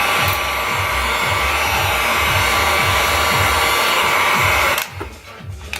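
Heat gun blowing steadily while heating plastic for a cosplay prop, switched off suddenly near the end. A beat of background music runs underneath.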